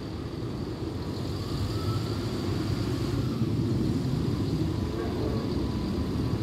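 Class 170 Turbostar diesel multiple unit's underfloor diesel engines giving a low, steady rumble that slowly grows louder as the train approaches.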